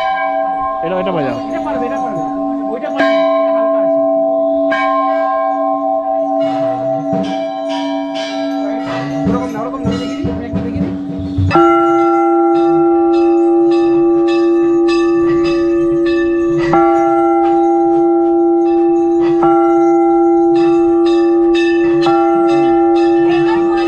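Temple bells being rung, struck again and again so their ringing tones overlap and hang on. About halfway through a louder, slightly higher-pitched bell takes over.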